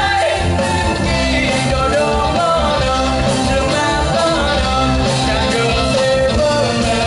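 Live band playing a rock-style song with a lead singer.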